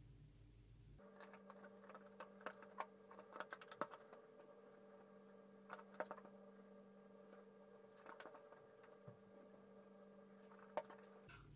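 LEGO bricks being handled and pressed together: scattered sharp plastic clicks and taps, the loudest about four and six seconds in and near the end, over a faint steady hum.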